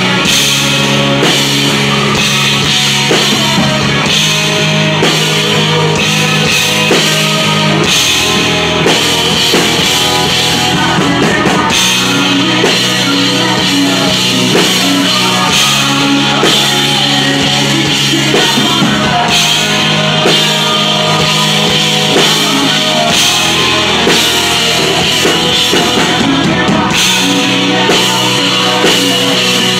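Live rock band playing loudly: drum kit and electric guitar with a man singing lead vocals into a microphone.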